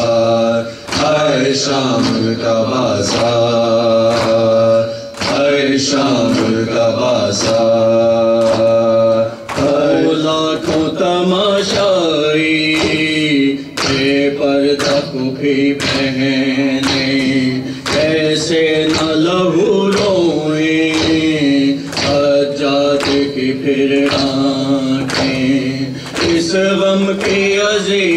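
Men's voices chanting a noha (Shia mourning lament), a lead reciter with the group joining in. It is kept in time by sharp strikes about every 0.7 s, hands beating on chests (matam).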